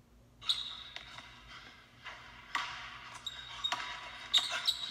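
Basketball dribbled on a hardwood gym court, a string of uneven bounces starting about half a second in, with short high squeaks of sneakers on the floor.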